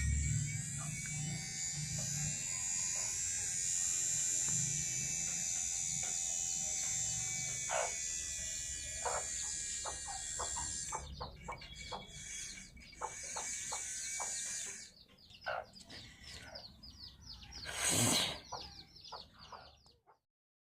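Small DC motor of a homemade angle grinder running with a steady high-pitched whine that wavers slightly in pitch. About halfway through it runs in short stop-start spurts with clicks, there is a louder noisy burst near the end, and then the sound cuts off.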